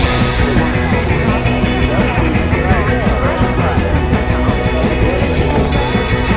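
Loud, dense music with many layered parts, part of an experimental noise-music collage.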